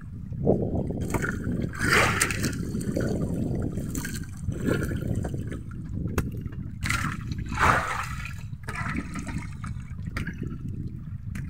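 Seawater running and dripping off a wet fishing net as it is hauled in by hand over a boat's side, with louder splashes about two seconds in and again near eight seconds, over a steady low rumble.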